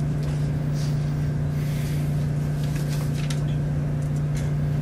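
Steady low hum of room background noise with a few faint clicks.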